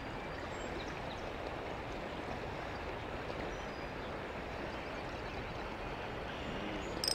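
Steady rushing of the river current. A spinning reel starts to click right at the end.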